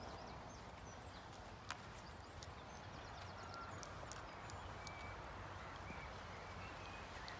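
Quiet outdoor background with light scattered ticks and a few short, faint high chirps; one tick, about two seconds in, stands out a little.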